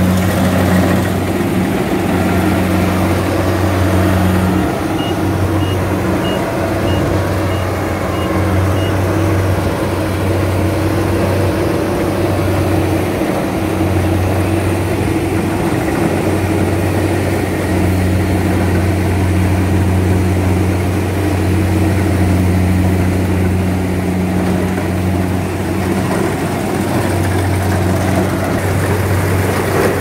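Kubota crawler combine harvester running under load while cutting rice: its engine and threshing machinery give a loud, steady low drone whose hum swells and dips a few times.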